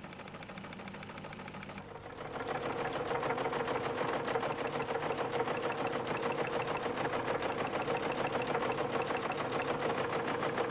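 Electromechanical teleprinter printing a message and punching paper tape. At first only a steady running hum is heard; about two seconds in, the typing mechanism starts a fast, even clatter, with a steady tone underneath.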